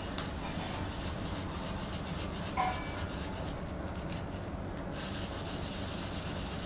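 Felt-tip pen scratching on paper in quick short strokes as eyes are drawn and filled in, over a steady low hum, with a brief squeak about two and a half seconds in.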